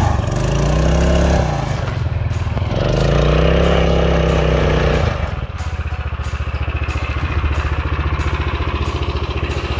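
Rokon Trail-Breaker's 7 hp Kohler single-cylinder engine working under load as the bike claws up a steep snow-covered slope. The revs rise and fall twice, then drop to a steadier, lower running at about five seconds in.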